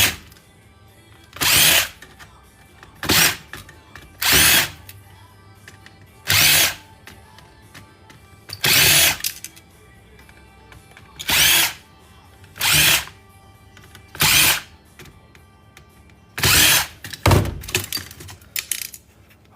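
Power drill running in about eleven short bursts, each under a second and a second or two apart: screws being driven out of an electronics circuit board during teardown.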